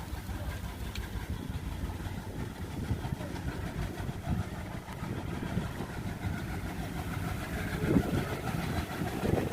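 ALCo diesel engine of a WDM3D diesel-electric locomotive running with a steady low throb, swelling briefly near the end.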